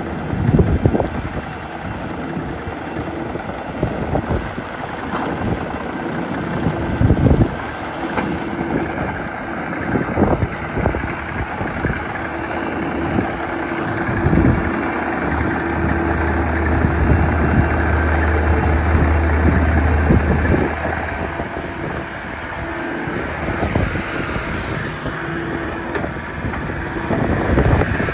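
Takeuchi TB175 tracked excavator's diesel engine running steadily, with a deep hum that swells from about halfway through for several seconds as the machine works harder. Sharp clunks and knocks come at irregular moments.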